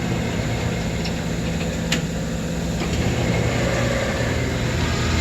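South Bend Model A 9-inch lathe running: its electric motor and belt-driven spindle and gearing give a steady hum, with a sharp click about two seconds in.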